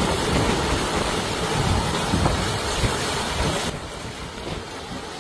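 Steady rushing storm noise with wind buffeting the microphone, dropping abruptly to a quieter rush a little over three and a half seconds in.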